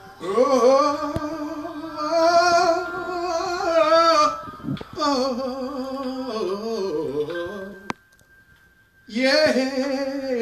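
A man singing unaccompanied: long wordless held notes with vibrato, the second phrase sliding down in pitch, then a short pause and a sung "yeah" near the end.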